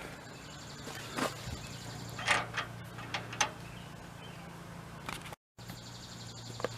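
A handful of light clicks and taps, scattered between about one and three and a half seconds in, over a steady low hum.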